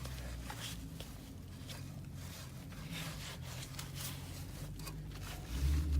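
A cloth scrubbing a pit bike by hand: scattered short rubbing and scraping sounds over a low rumble, with one louder low thump near the end.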